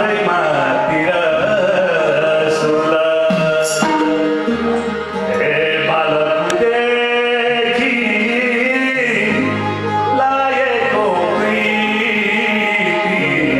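A Nepali folk song performed live by a small ensemble: a male lead voice with harmonium, bansuri flute, tabla and acoustic guitar.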